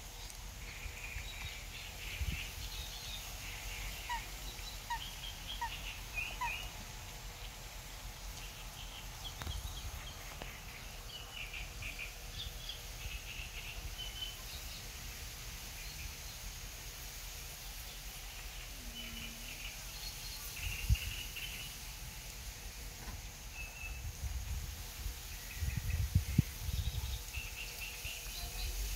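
Cygnets giving short, high-pitched peeping calls, scattered throughout. Low rumbles and thumps come and go, loudest about two-thirds of the way through and near the end.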